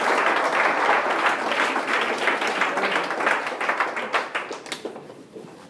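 Audience applauding, the clapping thinning out and dying away over the last second or two into a few scattered claps.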